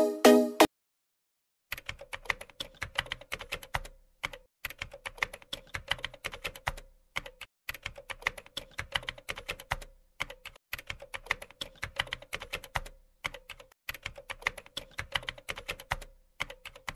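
A musical jingle cuts off in the first second. Then a computer-keyboard typing sound effect goes on, with rapid keystroke clicks in runs of a few seconds separated by short pauses.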